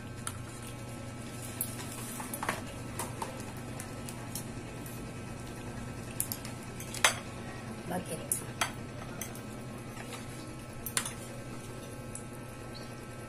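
Metal spoon and fork clinking against ceramic plates during a meal, in scattered irregular clinks, the loudest about seven seconds in.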